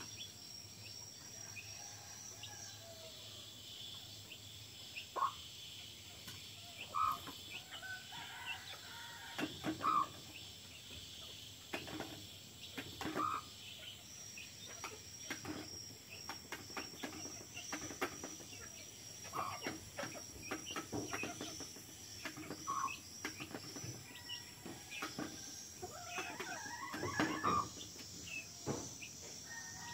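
Hen clucking in short single calls every few seconds, with a longer call that rises and falls near the end; insects trill steadily underneath.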